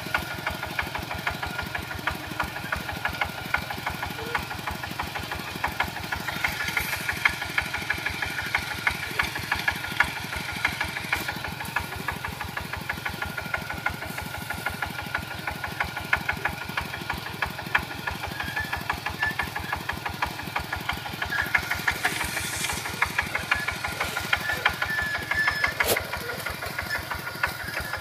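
Kubota two-wheel walking tractor's single-cylinder diesel engine running steadily under load as it drives its steel cage wheels through soil, a fast, even chugging knock. A single sharp click sounds near the end.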